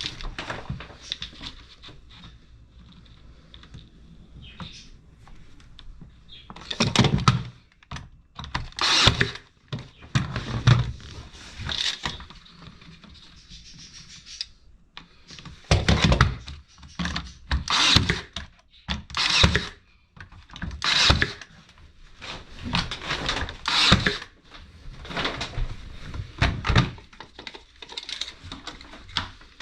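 Wooden knocks and scraping handling noises from work on a board guide, in irregular clusters every second or two.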